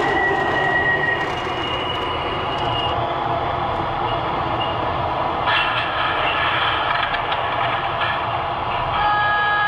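MTH O-scale model subway train on three-rail track, its onboard sound system playing recorded subway running sounds: a steady rumble with whining tones, and a new set of steady tones starting near the end.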